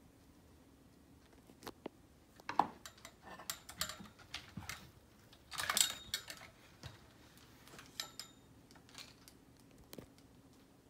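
Scattered light taps, clicks and rustles from movement on and around a carpeted cat tower. The loudest knock comes about two and a half seconds in, with a longer rustling scrape near six seconds.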